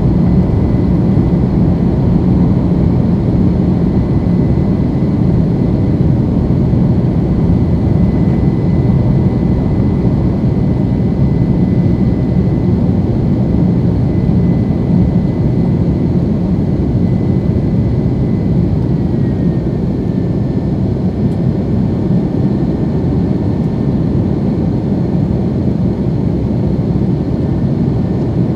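General Electric CF6 turbofan engines of an Airbus A330-300 at climb thrust just after takeoff, heard inside the cabin as a steady low roar with a thin whine. The whine steps down slightly in pitch about nineteen seconds in, and the roar eases a little.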